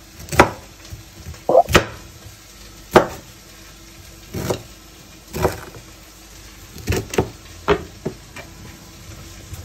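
Knife chopping broccoli on a wooden cutting board: about ten sharp knocks of the blade hitting the board at uneven intervals.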